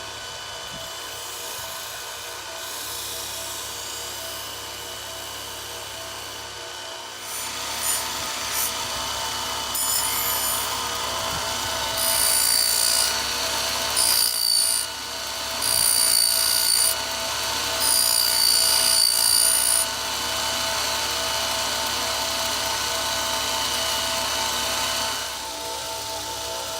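Powered knife-sharpening machine running with a steady motor hum while a blade is ground against it. The grinding grows in about a third of the way in, then comes as four passes of a second or so each, a bright, high grinding ring.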